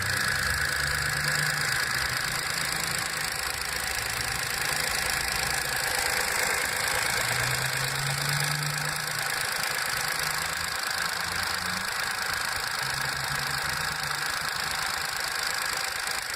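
VW Up! 1.0 MPI three-cylinder engine idling steadily after a cold start, its intake camshaft phase variator recently repaired for an oil leak.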